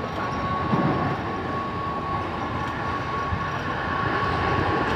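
Mumbai suburban local electric train running at speed: a steady rumble of wheels on the rails with a steady high whine, heard from the coach's open doorway.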